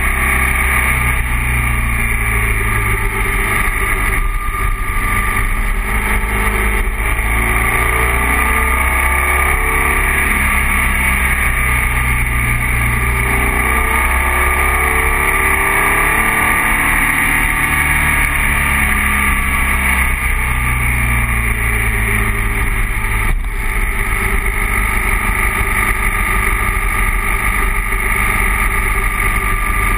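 BMW R1200 boxer-twin motorcycle under way, engine running with its revs rising and falling, under a steady rush of riding noise.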